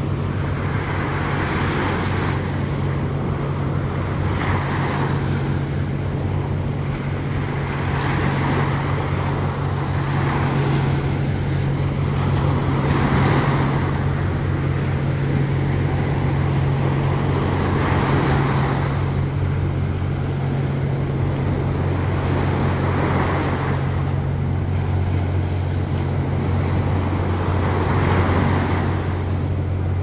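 Surf breaking and washing over a sandy beach, the wash swelling and easing every few seconds, over a steady low hum.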